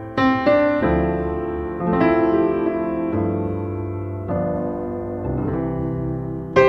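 Background piano music, with sustained notes and a new note or chord about every second.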